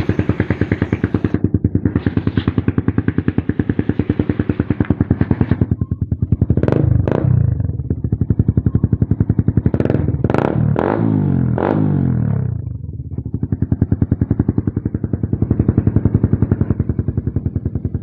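Suzuki Raider 150 Fi's single-cylinder engine idling through an aftermarket Apido 'chicken pipe' exhaust, with a fast, even beat. The throttle is blipped around seven seconds in and again in a quick series of revs between about ten and twelve seconds, then the engine drops back to idle.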